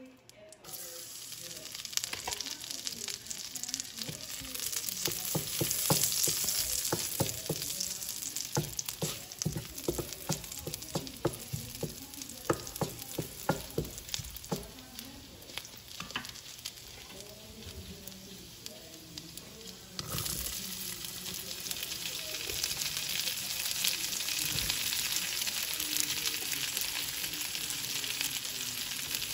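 Chopped garlic sizzling in hot oil in a wok, with a spatula stirring and clicking against the pan. About twenty seconds in, the sizzle jumps louder and steadier as sliced onions go into the oil.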